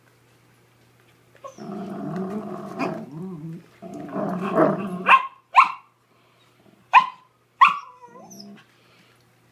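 Dogs play-growling while tugging on a plush toy, a golden retriever and a terrier: a low growl of about three seconds, then four short, sharp, high barks about a second apart.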